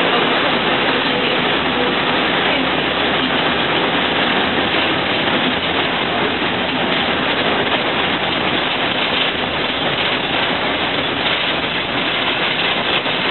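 Steady running noise inside a moving city bus: its engine under a dense, even hiss of road and air noise.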